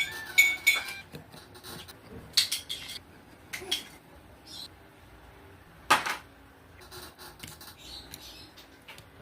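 Scattered clicks and light metallic clinks of small repair tools being handled against a phone, with a few short ringing clinks just after the start and a sharp click about six seconds in.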